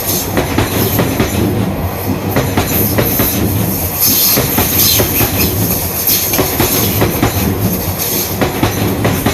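Electric commuter train passing close by at a level crossing: a steady rolling rumble with wheels clicking irregularly over rail joints.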